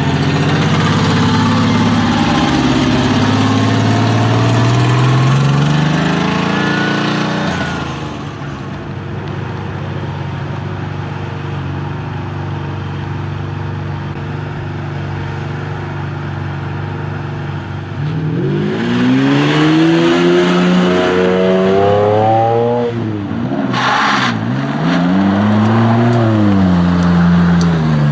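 Ferrari sports car engines as the cars drive past one after another. An engine rises in pitch as it pulls away over the first several seconds, a steadier, quieter engine tone runs through the middle, then an engine revs up with a sharply rising pitch, dips briefly and rises again near the end.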